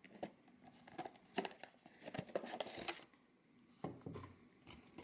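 Faint scattered clicks and light crinkles of a small boxed toy figure's plastic packaging being handled, with a short cluster of ticks midway.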